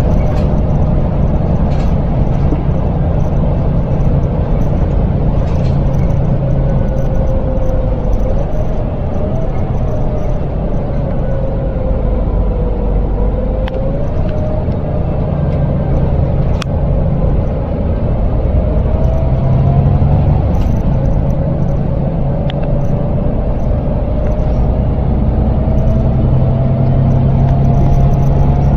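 Volvo B7L single-deck bus heard from inside the saloon while driving: a steady low engine rumble under a thin whine that slowly rises and falls as the bus speeds up and slows. A single sharp click sounds a little past the middle.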